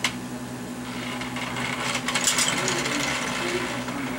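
Lionel 164 log loader's electric motor humming steadily as the accessory runs. There is a sharp clack at the start and a short rattle of clicks about two seconds in.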